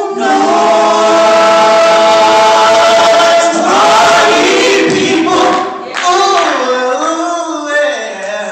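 Male vocal group singing in harmony into microphones: a long held chord for about three and a half seconds, then the voices glide and move through a phrase, a little softer near the end.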